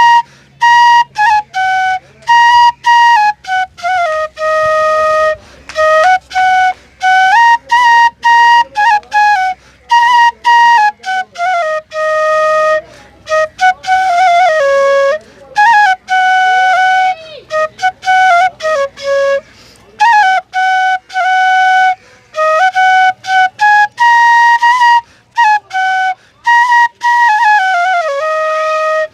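Bansuri (bamboo flute) playing a Chhath folk song melody, solo, in short phrases broken by frequent brief pauses, with some notes sliding from one pitch to the next.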